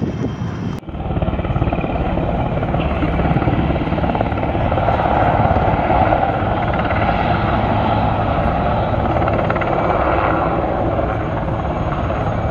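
Helicopter flying low past with a steady rotor and turbine sound, growing somewhat louder through the middle. It starts abruptly about a second in.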